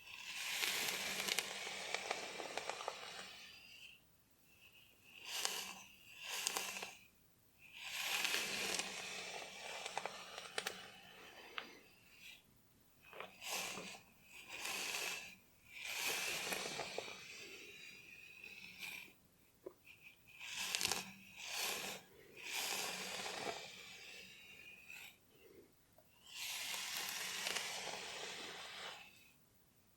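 Scratching through hair on a scalp, in strokes lasting from under a second to about three seconds, with short quiet gaps between.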